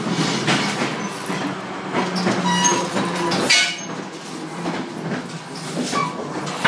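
Commuter train car heard from inside: a steady low rumble of the running train with wheel clatter, a few thin metallic squeals and a couple of sharp knocks.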